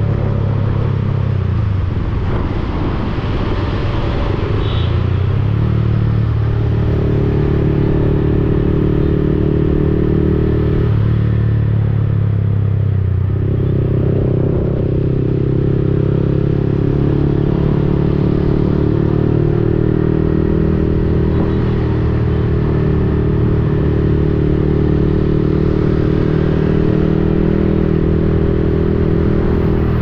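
Yamaha XSR 155's single-cylinder engine running through an aftermarket Akrapovic-replica exhaust while riding. The engine note mostly holds steady, shifting in pitch a few times, with a drop near the middle and a short break before it picks up again.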